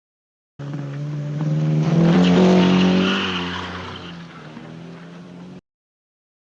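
AI-generated sound effect played back: an engine-like pitched sound that swells to a peak about two seconds in and then fades. It starts and cuts off abruptly after about five seconds.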